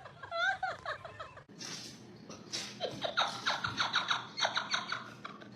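High-pitched squealing calls in quick repeated series, bending up and down in pitch, with a longer, denser run in the second half.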